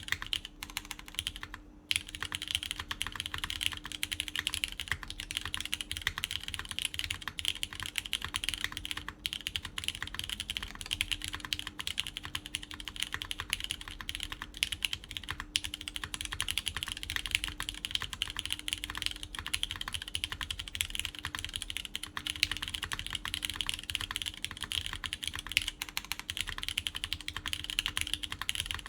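Fast, continuous typing on a QK Neo80 Cu mechanical keyboard in top-mount configuration, with a polyetherimide plate, lubed Cherry MX Orange switches and GMK Carbon keycaps. There is a brief pause just before the two-second mark.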